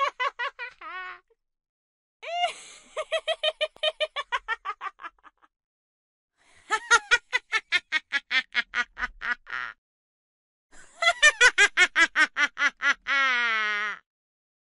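Cartoon witch's cackle: rapid, high-pitched laughter in separate bursts of two to three seconds with a second of silence between them, one trailing off near the start and three more after. The last burst ends in a drawn-out falling note.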